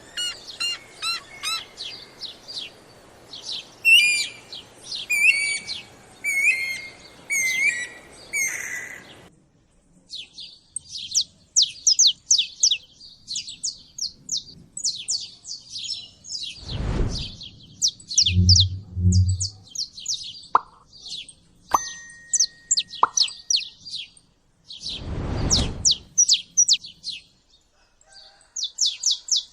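Several songbirds singing, with fast, repeated high chirps and trills. There are a few low thumps or whooshes in the second half.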